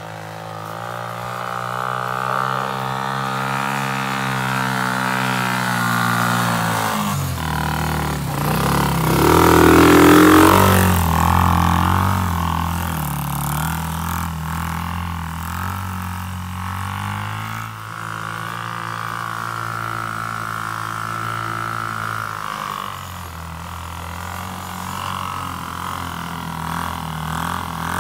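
Engine of a Hummer-model 125 cc ATV running as the quad is ridden over snow, its pitch rising and falling with the throttle. It revs up loudest about ten seconds in.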